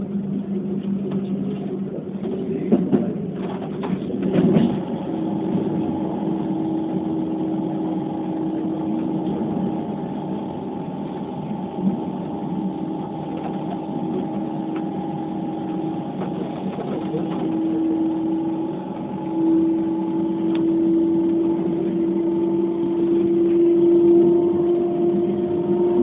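Keikyu New 1000 series electric train running at speed, heard from behind the cab: a steady electric motor whine over the rumble of the wheels on the track. The whine rises slightly in pitch and grows louder in the second half, with a few knocks from the track a few seconds in.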